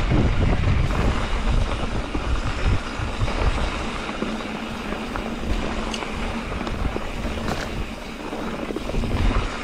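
Mountain bike rolling along a dirt trail: wind rushing over the microphone and tyres rumbling on the ground, heaviest in the first few seconds, with a few sharp ticks and rattles.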